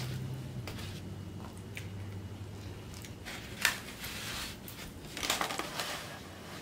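Close-up eating sounds of chewing a fried seafood ball, mixed with the creaking and clacking of a styrofoam takeout box being handled and shut. A sharp crackle comes just past halfway, and a crunchy cluster about five seconds in.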